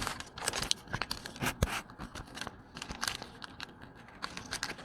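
Toy packaging being torn open and crinkled by hand: a run of short, irregular rips and crackles.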